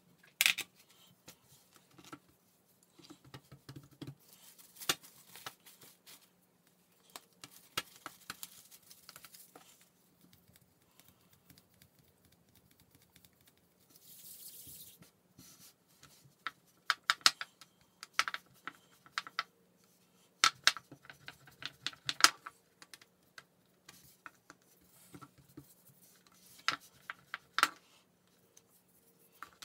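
Handling noises on a hard work board: scattered taps and clicks as sugarcraft tools and a small plastic rolling pin are picked up, knocked and set down, with a short soft rubbing hiss about halfway through as the hands rub together.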